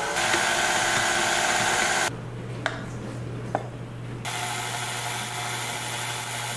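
KitchenAid tilt-head stand mixer running, its flat beater turning through pumpkin donut batter in a glass bowl; a steady motor whir with a low hum. About two seconds in the whir drops back, with two sharp clicks, and about four seconds in it picks up again.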